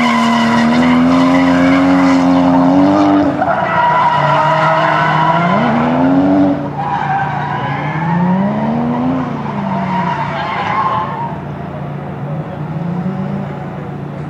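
Toyota Cresta's JZ straight-six held at high revs while drifting, its rear tyres skidding, with the engine note rising and falling several times as the throttle comes on and off. It drops away and grows fainter after about six seconds.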